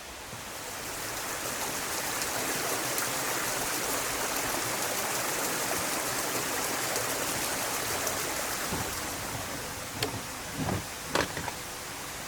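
Mountain stream water running steadily, fading in over the first two seconds. A few soft knocks come near the end.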